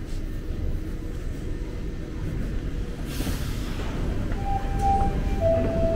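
A Toronto subway train's door chime sounds near the end: two clear, falling notes, one after the other, the signal that the doors are about to close. It plays over a steady low rumble of station and escalator machinery, with a short hiss about halfway through.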